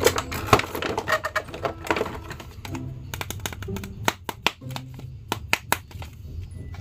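Hard plastic action figures clicking and knocking against each other and a clear plastic packaging tray as they are handled, in quick irregular taps.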